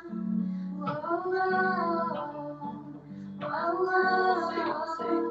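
A song with a woman's singing voice over guitar accompaniment, in two long sung phrases.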